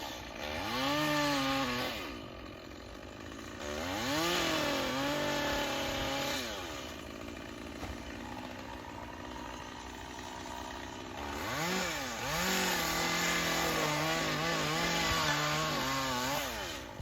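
Gas chainsaw revving up and holding high revs three times, the pitch wavering while held, and dropping back to a lower run in between: the saw working on coconut palm fronds.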